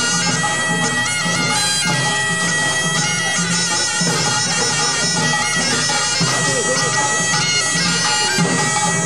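Korean pungmul band playing a pangut: drums beating a steady rhythm under a shrill, sustained reedy tone and bright high ringing.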